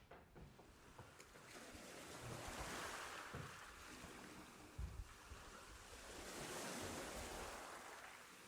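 Ocean waves washing in, rising and falling twice in slow swells. A low thump comes about five seconds in.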